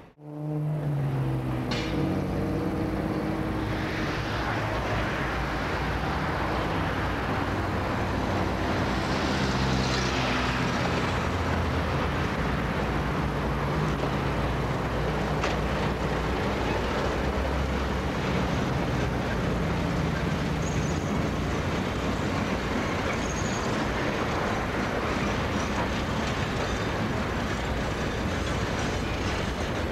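A diesel locomotive hauling a coal train past. Its engine note shifts in pitch over the first dozen seconds, then the steady rumble of coal hopper wagons rolling by takes over, with a few faint clicks.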